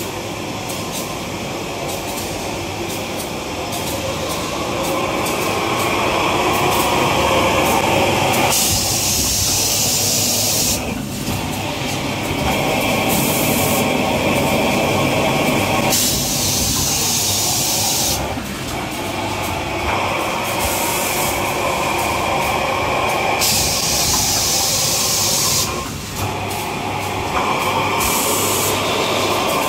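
Automated tissue-paper packaging machinery running steadily, with repeated loud hisses a second or two long breaking in every few seconds.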